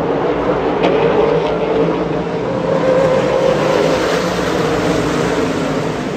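A pack of late model stock cars racing past at full throttle, many V8 engines blending into one loud, steady engine note that swells slightly as the field goes by.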